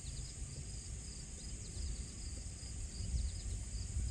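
Summer insect chorus: a steady high buzz with repeated short chirps, over a low uneven rumble.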